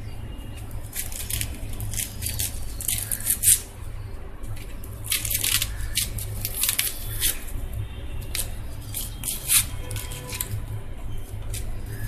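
Dry outer skins of red onions crackling and rustling as they are peeled off with a small knife, in irregular bursts with a couple of sharper snaps, over a steady low hum.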